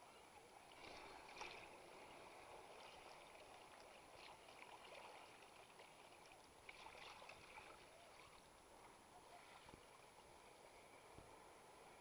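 Near silence: faint, muffled sloshing of sea water at the surface, with a couple of brief louder splashes about a second in and around seven seconds in.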